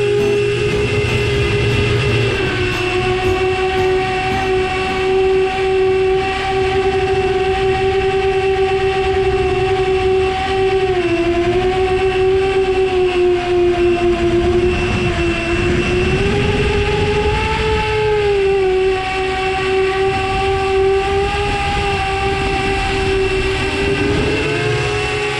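FPV quadcopter's brushless motors and propellers whining steadily. The pitch dips and rises with throttle changes, sagging about 11 and 15 seconds in, climbing again around 17 seconds, and sliding up near the end.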